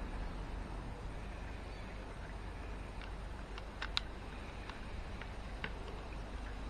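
A few light plastic clicks and knocks, the clearest about four seconds in, as a perforated inner bucket is raised by its handle out of a plastic bucket of acid, over a faint steady outdoor background.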